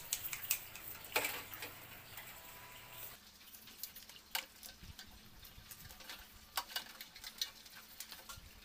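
Toothbrush scrubbing the hard shell of a live crab over a steel basin: faint, irregular clicks and scratches.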